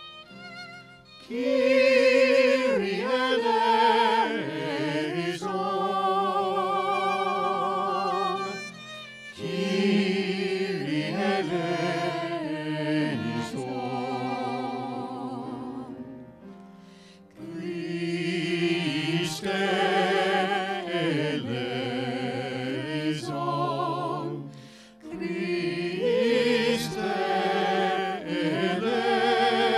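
Several voices singing a slow sacred piece with vibrato, accompanied by violin. The singing comes in about a second in and runs in four long phrases with short breaks between them.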